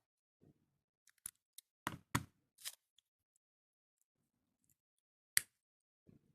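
Small, sharp clicks from beading work, as tools and glass beads are handled at close range. A cluster of clicks comes about a second in, and one louder sharp click comes near the end.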